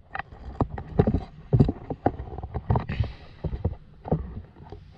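Irregular knocks and clicks, a few a second, with a brief rustle about three seconds in: handling noise as things are picked up and moved close to the microphone.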